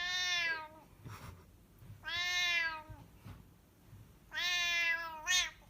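A domestic cat meowing repeatedly: three long, drawn-out meows about two seconds apart, then a short one near the end.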